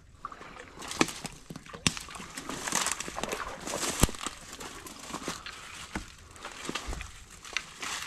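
Footsteps of a hiker in boots walking over the woodland floor: uneven steps with scattered sharp knocks and bursts of crunching.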